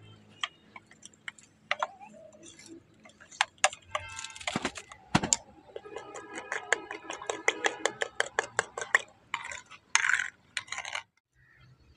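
A metal spoon clinking and scraping against a clay bowl as gram flour is whisked into a liquid batter, with scattered clinks at first and then a fast run of clinks about halfway through.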